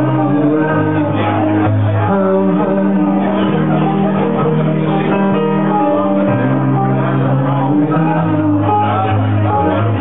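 Live folk-rock duo playing: a strummed acoustic guitar and an electric keyboard, with singing over them.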